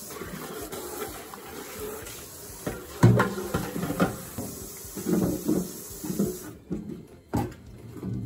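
Tap water running onto a clear plastic container being rinsed in a stainless steel sink, with knocks and clunks of the container handled against the sink, the loudest about three seconds in. The running water stops about six and a half seconds in.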